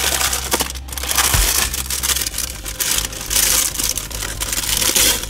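Crinkling and crumpling of a silver printed plastic accessories bag as it is handled and opened by hand.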